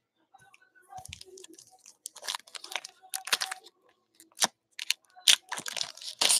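Panini Prizm basketball retail pack's shiny wrapper crinkling and tearing as it is peeled open by hand: a dense run of sharp crackles and rips that starts about a second in.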